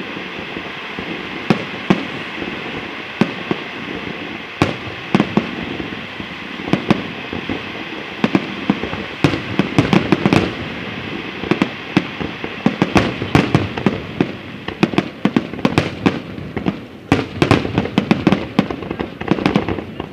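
Aerial fireworks display: shells bursting in sharp bangs over a steady crackling hiss, with a few bangs early on that come thick and fast in the second half.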